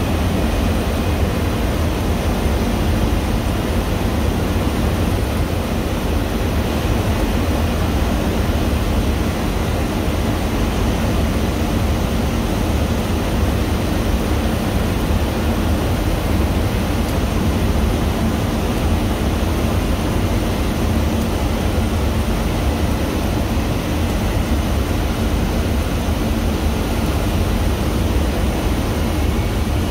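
Steady cockpit noise of a KC-135 Stratotanker in flight: jet engines and rushing air heard from inside the flight deck as an even, deep rumble.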